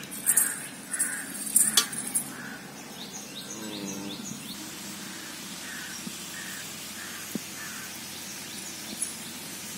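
A bird calling a short note over and over, about two or three times a second, in two runs, with a few quick chirps in between. A few loud, brief rustles and knocks come in the first two seconds.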